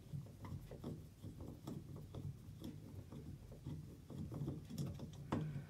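Phillips screwdriver backing the centre screw out of a clear acrylic tub faucet knob: faint, irregular small clicks and scrapes of the bit working in the screw head, with a slightly sharper click near the end.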